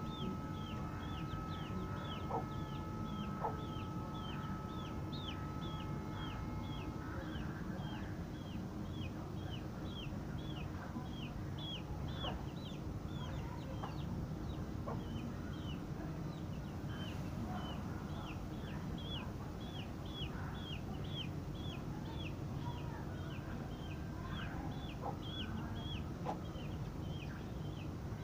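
Chicks about 20 days old peeping continuously: short, high, downward-sliding peeps at about two a second, the insistent calling of hungry chicks.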